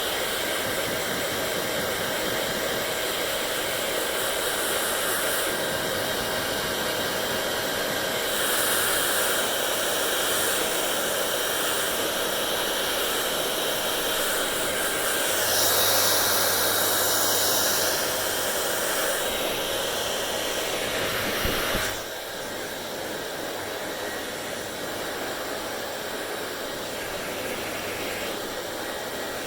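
Hair dryer blowing continuously, a steady rushing hiss with a faint whine. It grows louder twice and drops suddenly to a lower, quieter level about two-thirds of the way through.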